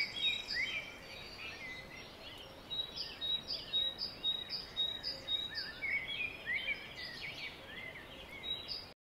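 Several birds singing and calling in chorus: a short high note repeated about twice a second among other chirps and whistled glides. The sound cuts off suddenly near the end.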